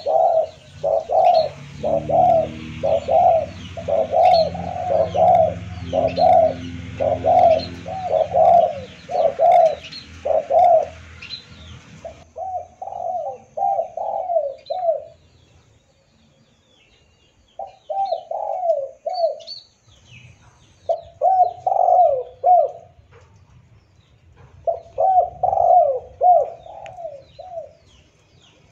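Spotted dove cooing over and over. For about the first twelve seconds the coos come in an even run, about one every three quarters of a second, over a low hum that stops abruptly; after that they come in short phrases of several coos with pauses of a second or two between them.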